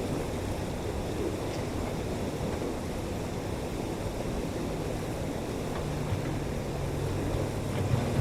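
Hydraulic excavator's diesel engine running, with a higher engine note joining about two-thirds of the way through, over a steady rushing noise.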